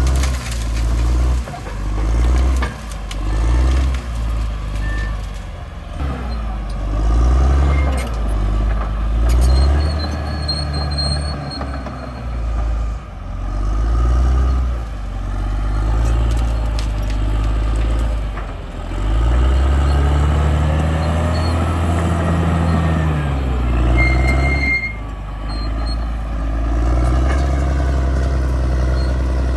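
Caterpillar D6R bulldozer's diesel engine working under varying load, its pitch and loudness rising and falling every few seconds as it pushes and eases off.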